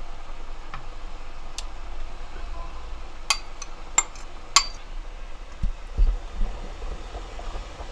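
A metal spoon scraping seasoning paste out of a bowl, with three sharp clinks about half a second apart midway as it knocks against the bowl's rim. Softer low knocks follow as the spoon pushes the paste around the pot.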